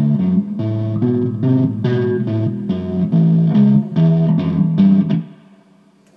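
Bass guitar played through a Woolly Mammoth-style bass fuzz pedal with its impedance knob turned up: a run of distorted bass notes that stops about five seconds in. Even with the impedance knob the fuzzed low end is not quite as clear.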